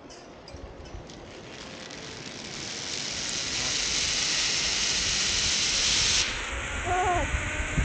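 Zip-line trolley running along its steel cable, with wind rushing over the microphone: a steady hiss that grows louder as the rider picks up speed. A short pitched squeal comes about seven seconds in.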